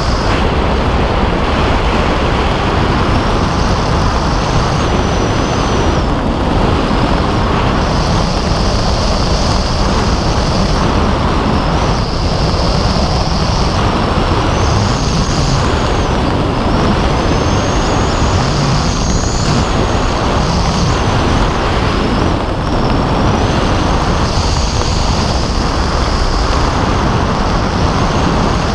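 Steady loud wind rushing over the camera microphone during a parachute canopy descent, with an airy hiss up high that swells and fades every few seconds.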